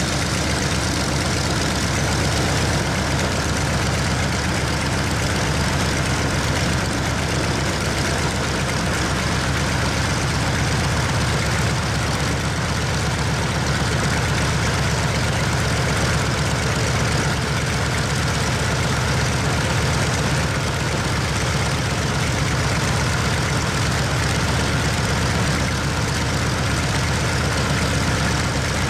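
A Mitsubishi A6M5 Zero's Nakajima Sakae 21 fourteen-cylinder radial engine running steadily on the ground with its propeller turning, the level holding even throughout.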